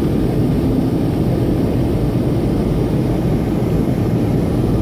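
Steady low drone of an airliner's engines heard inside the passenger cabin as the plane climbs after takeoff.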